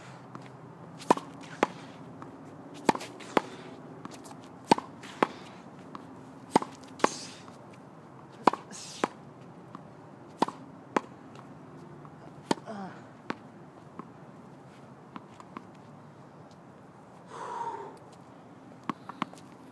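Tennis ball against a racket and a wall in a steady rally: sharp pops in pairs about half a second apart, one pair every couple of seconds. The rally stops about two-thirds of the way through.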